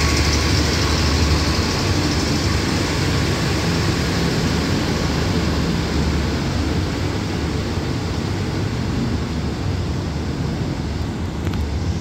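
Passenger train's coaches rolling out past the platform: a steady rumble and hiss of wheels on rails, slowly fading as the train pulls away.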